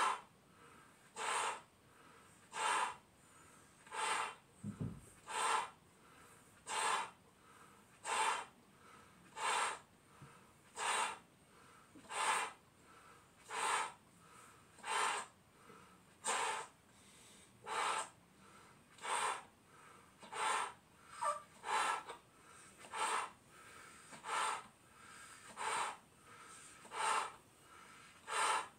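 A person blowing up a clear latex balloon by mouth: a quick, sharp breath about every one and a half seconds, in a steady rhythm, with no pop.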